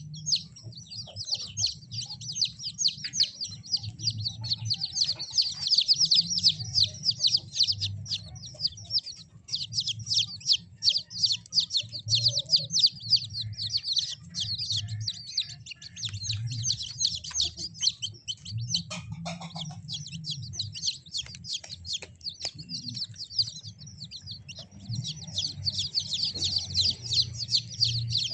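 A brood of kampung chicks peeping, many high chirps overlapping in a continuous chorus, thinning somewhat in the middle and crowding together again near the end.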